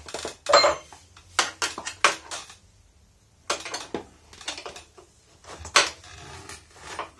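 Steel wrench and bolts clinking and clattering as a motorcycle kickstand is unbolted: irregular sharp metal-on-metal clinks, with a short pause about halfway through.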